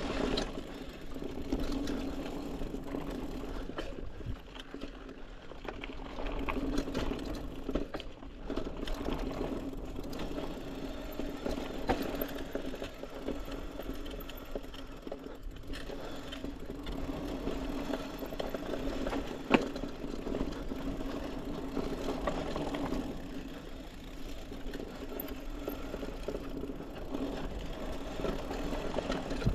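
Trek Marlin 6 hardtail mountain bike riding a dirt singletrack: tyres rolling, and the chain and frame rattling over bumps, over a steady mechanical whir. A sharp clack stands out about twenty seconds in.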